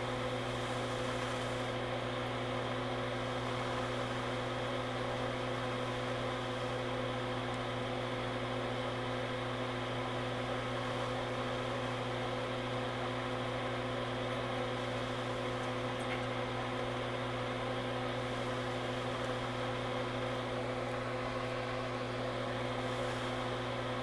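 Steady, unchanging hum of a small electric fan or blower motor running.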